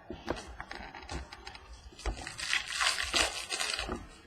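Trading cards being handled, with soft clicks and taps as they are flicked and stacked, then about two seconds of crinkling from a foil card-pack wrapper being torn and handled.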